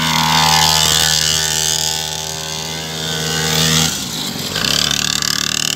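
Small engine of a child's mini dirt bike running at a steady speed, then the revs drop briefly about four seconds in as the bike leans into a turn, picking up again with a fluttering beat.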